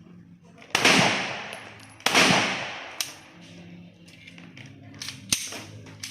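Two 9mm pistol shots just over a second apart, each echoing as it dies away, followed by a few fainter sharp cracks.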